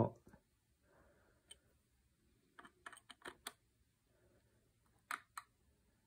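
Faint, scattered metal clicks of a flat-blade screwdriver blade working in a screw slot on the steel action of a Beretta EELL over-and-under shotgun: a single click about a second and a half in, a quick cluster around three seconds, and two more near the end.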